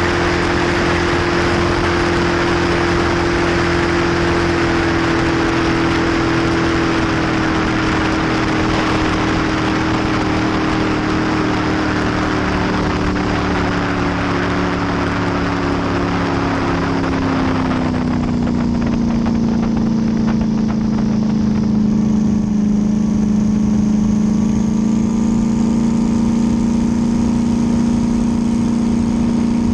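Twin-turbo V8 race boat engine of over 1600 horsepower running hard and steady close to the onboard microphone, with a heavy rush of wind and water. About two-thirds of the way through, the engine note drops and settles lower and the rushing fades as the boat eases off.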